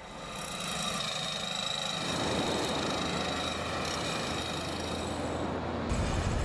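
Track construction machinery running: a steady engine noise with a high whine, changing abruptly about six seconds in to a deeper rumble.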